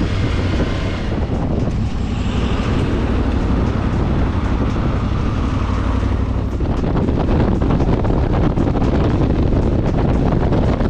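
Motorcycle engine running steadily on the move, with wind buffeting the microphone.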